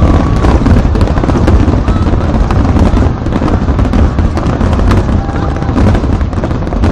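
Fireworks finale: a loud, near-continuous barrage of shell bursts and crackling, many reports overlapping with no pause.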